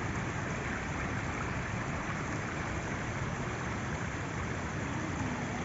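Steady rush of flowing river water over rocks, an even noise with no breaks.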